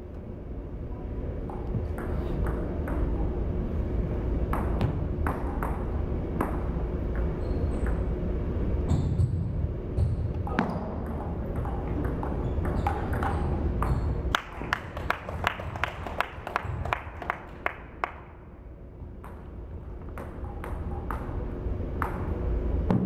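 Table tennis ball clicking off the rubber paddles and the table as the players rally. The strikes come scattered at first, then in a quick run of about three to four a second some fifteen seconds in, over a steady low hum.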